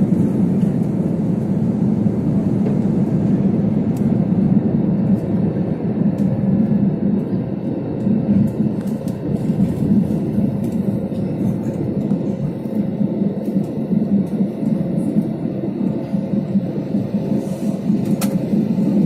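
Steady engine and air noise inside a passenger aeroplane's cabin, a low even rumble with a faint steady hum above it.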